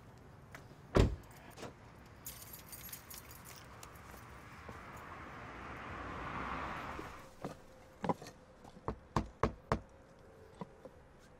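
A pickup truck door slams shut about a second in, followed by keys jangling. Near the end come four quick knuckle knocks on a front door.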